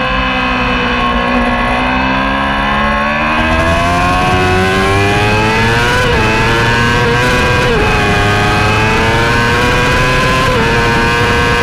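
Racing motorcycle engine heard from on board, under hard acceleration with its pitch climbing steadily for about six seconds, then holding high with three brief dips. Wind rush on the microphone grows louder as speed builds.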